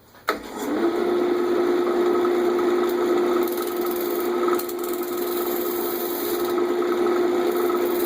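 Wood lathe switched on, its pitch rising briefly as it spins up, then running steadily while a turning tool scrapes and cuts across the face of a spinning MDF disc, truing it up and cleaning off hardened CA glue.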